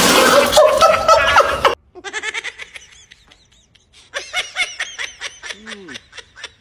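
A loud, noisy burst cuts off abruptly just under two seconds in. After it a person laughs in quick, rhythmic 'ha-ha' bursts, twice, the second run longer.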